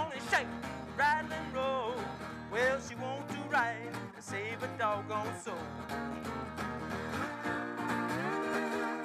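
Acoustic guitar playing a blues ending: for the first few seconds, notes that swoop up and down in pitch over a picked accompaniment, then steady strummed chords.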